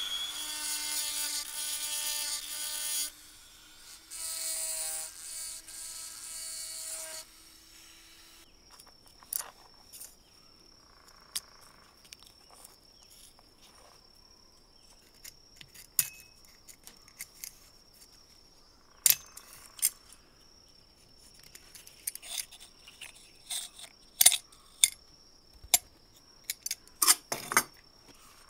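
A small power tool's motor runs with a steady whine for about three seconds, stops, then runs again for about three more. After that come scattered light clicks and taps of metal lamp parts being handled and turned by hand, with a faint steady high tone underneath.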